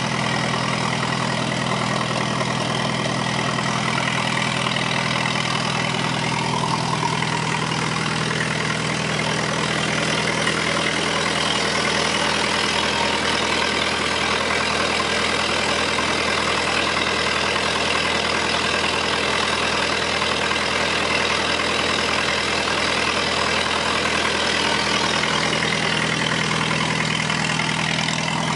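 Engine of a 1952 20 kW generator set running steadily at governed speed under load, driving a 15 kW three-phase electric heater.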